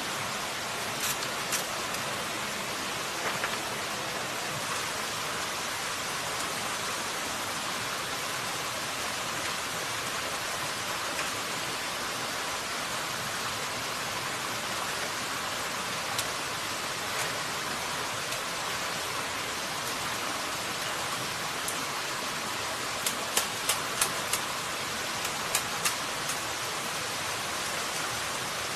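Steady rush of a stream flowing over rocks, with sharp cracks and knocks as green bamboo is split into strips with a machete. The cracks come singly now and then, then several in quick succession near the end.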